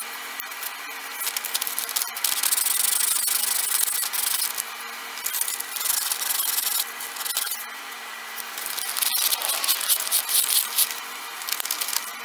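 Hand abrading of a wooden handle test piece set with brass pins: scratchy back-and-forth rubbing strokes, coming in three louder spells with short pauses between them.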